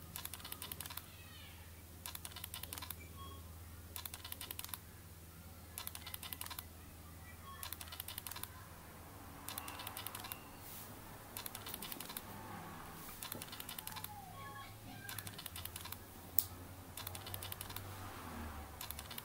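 Steel plastering trowel scraping wet plaster, in short strokes about every two seconds, over a faint steady hum.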